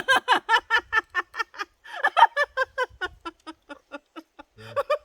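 A person laughing hard in a long run of quick, evenly spaced 'ha' bursts, about five or six a second. The laughter fades after about three and a half seconds and starts up again near the end.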